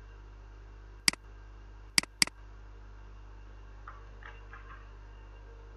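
Computer mouse button clicks: a single click about a second in, then a quick double click near two seconds, over a steady low hum.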